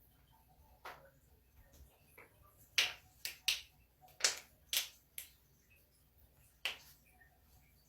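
Joints cracking: a quick series of sharp pops, about eight in all, most of them bunched together in the middle, with one more a little later.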